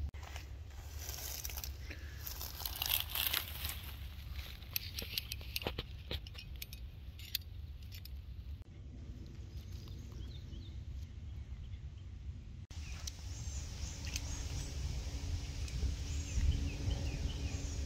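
Outdoor ambience: a low wind rumble on the microphone, with dense crackling rustle through the first half, then birds chirping in short repeated calls in the second half.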